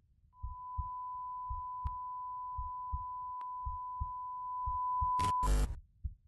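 Added sound effects: a slow heartbeat of soft low thumps under a single steady high beep, like a heart monitor's flatline tone. The beep ends about five and a half seconds in with a short, loud burst of noise, and the thumps stop soon after.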